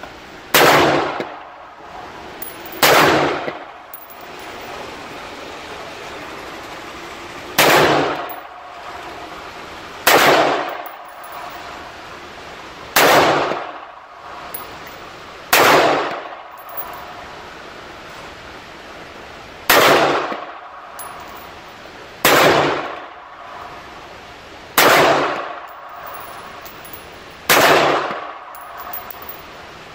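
An AR-15 pistol fired in slow single shots at an indoor range: about ten sharp, loud reports spaced a few seconds apart, each trailing off in echo.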